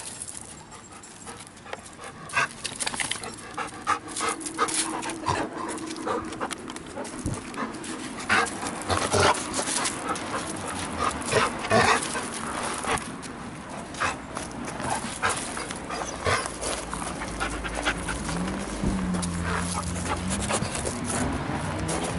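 Dogs panting, with many sharp clicks and knocks throughout and a low wavering hum in the last few seconds.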